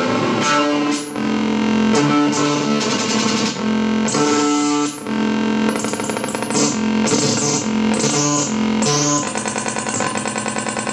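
Electric guitar played through a Barahunda fuzz/noise pedal: thick, distorted held notes changing every second or so. About nine seconds in, the tone breaks into a fast, even pulsing stutter.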